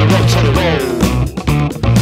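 Guitar-driven rock song with electric guitar and bass guitar playing. A note glides down in pitch about half a second in, and the band briefly drops out about a second and a half in.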